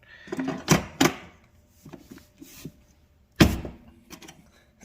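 Flush-mount floor vent insert being worked into its frame in the floor: scraping and rattling with several sharp knocks, the loudest about three and a half seconds in as it drops into place.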